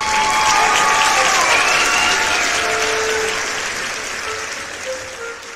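Crowd applause, starting suddenly and slowly fading away.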